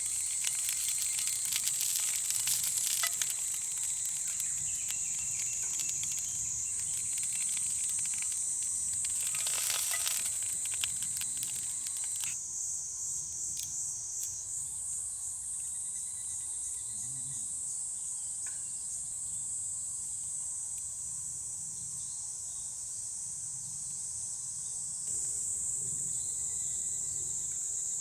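A steady high-pitched insect chorus, with food sizzling and crackling over a campfire through roughly the first half, stopping abruptly about twelve seconds in.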